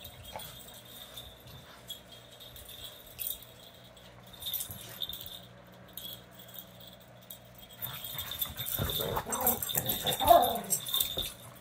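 Miniature schnauzer puppies and a corgi play-fighting: light jingling and scuffling at first, then, about nine seconds in, louder dog vocalizing in short wavering calls.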